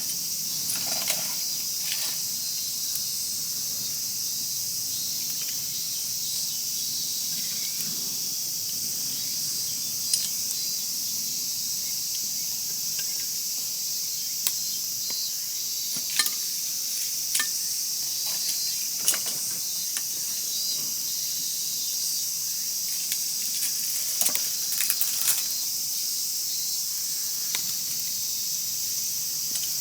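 A steady high insect chorus of evening crickets, with a wood fire crackling over it: scattered sharp pops, with a cluster of them near the end.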